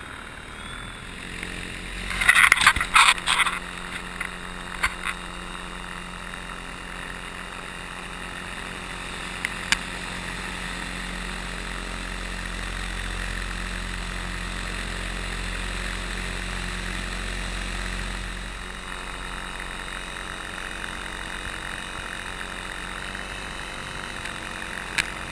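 Electric paramotor drive (paraglider auxiliary E-Drive) running steadily, its motor and propeller making an even hum with wind noise. A few loud rustling knocks come about two seconds in, and the sound grows slightly louder through the middle before easing back about two-thirds of the way through.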